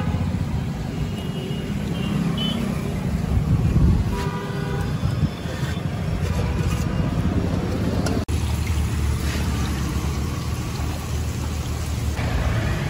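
Road traffic rumbling steadily, with a vehicle horn tooting briefly about four seconds in.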